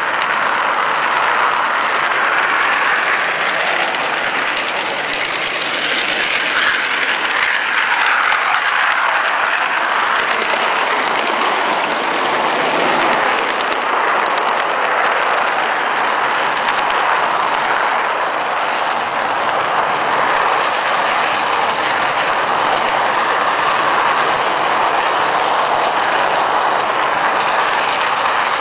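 Garden-scale model train running along its track, a steady rolling noise of wheels on rails heard from a camera riding on the train.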